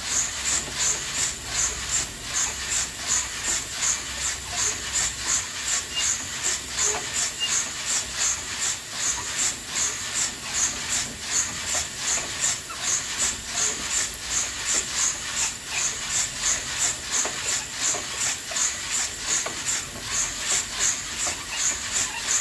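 Coffee beans tumbling and sizzling in an antique hand-turned coffee roaster over a wood-fired stove, making an even, rhythmic swishing hiss that pulses about two to three times a second.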